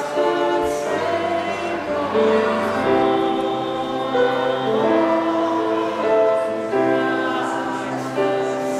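Group of voices singing a holiday song together with musical accompaniment, the notes held and moving on steadily.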